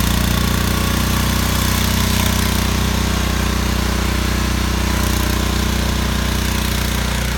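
Petrol rotary tiller's small engine running steadily.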